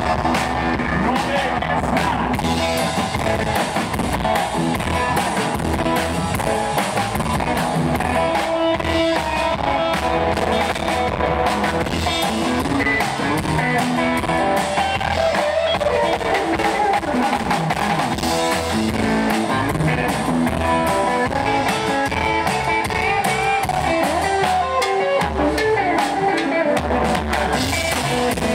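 Live rockabilly trio playing an instrumental passage: electric guitar playing lead over a drum kit and upright bass.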